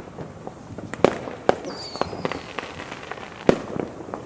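Fireworks going off: sharp bangs about one second in and again half a second later, the loudest about three and a half seconds in, among scattered smaller pops and crackles. A short high whistle falls in pitch about two seconds in.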